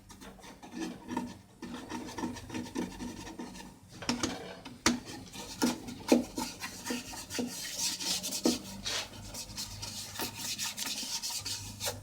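Repeated scraping strokes of a tool rubbing against wood, irregular, about one or two a second.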